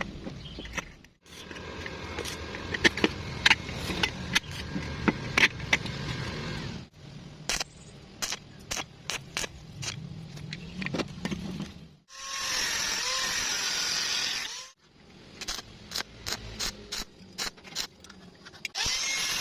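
Metalworking sounds in short cut-together clips: a crackling, scraping stretch with many sharp clicks, runs of separate metal taps and clicks, and twice a power tool's steady whine that wavers in pitch.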